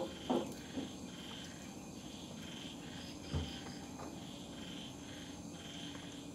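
Small nail clippers clicking as they trim a sugar glider's claws, a couple of sharp clicks in the first second and a duller knock a little past three seconds, over a steady high chirp that repeats a little under twice a second.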